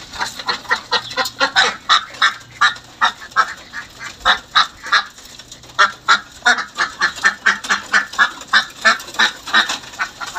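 Domestic laying ducks quacking: a rapid run of short quacks, several a second.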